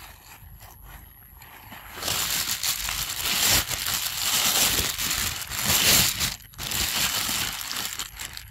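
Loud, close crinkling and crunching rustle that starts about two seconds in and carries on in a dense run of crackles.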